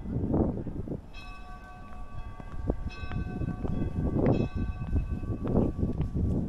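A large bell rings across the square, struck several times about a second apart, each stroke ringing on with a clear, lasting hum of tones, over low, uneven rumbling noise.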